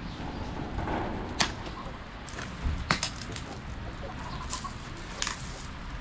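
Chickens clucking, with a few sharp cracks about a second and a half, three and five seconds in.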